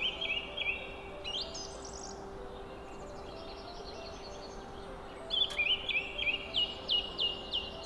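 Small bird singing in two bursts of quick, repeated high chirps: a short run right at the start and a longer run in the second half, each chirp sliding down in pitch. A steady low hum runs underneath.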